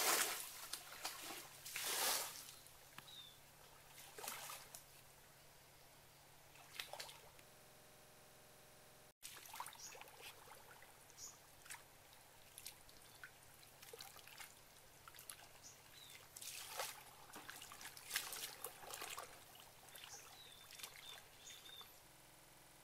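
Shallow, muddy water splashing and sloshing in scattered bursts as bare hands grab at fish and the fish thrash, strongest in the first couple of seconds and again in a longer flurry later on.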